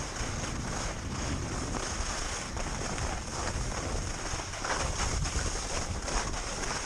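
Wind buffeting the microphone of a camera on a skier moving downhill, mixed with the steady hiss of skis running over wind-packed snow. There are a couple of louder scrapes past the middle.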